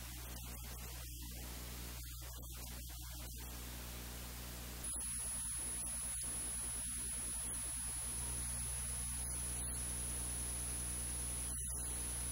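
Steady hiss with a low electrical hum, the noise floor of the recording between spoken lines. About five seconds in the hiss gets a little louder and a faint high-pitched whine joins it.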